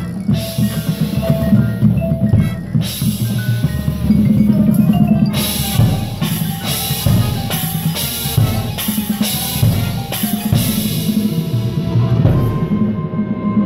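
Marching band playing, with the front ensemble's mallet keyboards, including vibraphone, ringing over the drums and horns. A dense run of sharp drum and cymbal hits comes in the middle.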